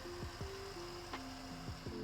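Background music: an electronic track with held melody notes that step from one pitch to the next, over deep drum hits that drop quickly in pitch.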